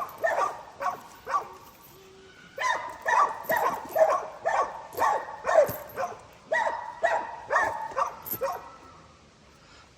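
Pit bull barking repeatedly in quick runs, about two to three barks a second. The runs break off briefly twice, and the barking stops near the end.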